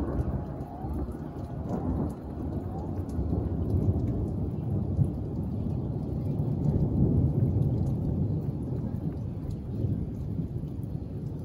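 Rolling thunder rumbling continuously, growing louder toward the middle and easing near the end, with rain falling.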